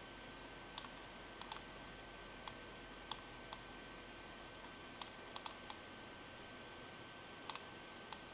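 Computer mouse button clicking, a dozen or so short sharp clicks at irregular spacing, some in quick pairs, over a faint steady hiss with a thin constant high whine.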